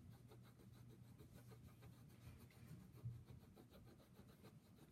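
Faint, repeated scratching of a Prismacolor Premier colored pencil shading on paper, over a faint low hum.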